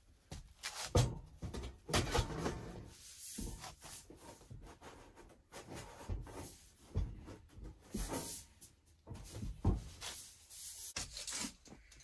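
Black stovepipe sections being handled and pushed together: metal scraping and rubbing, with irregular knocks and clunks. The loudest knocks come about a second in and again just before ten seconds.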